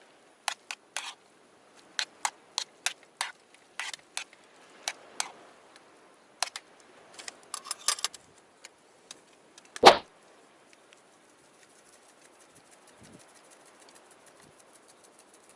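Metal cooking utensils clinking and knocking against camp cookware: a string of short clacks for about eight seconds, then one louder clack about ten seconds in.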